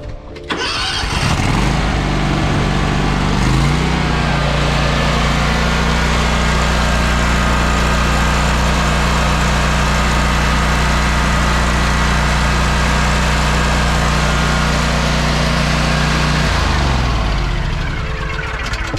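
Toro Grandstand 52 stand-on mower's Kawasaki 22 hp engine cranking and catching about half a second in, picking up speed after a few seconds, running steadily, then shut off near the end and winding down. It is a short run on fresh oil after the break-in oil change, to circulate it before the level is checked.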